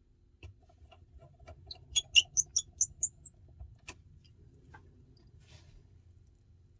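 Small sharp clicks and taps of hand tools against phone parts during repair work: a quick run of about seven bright clicks around two to three seconds in, with a few scattered single taps before and after.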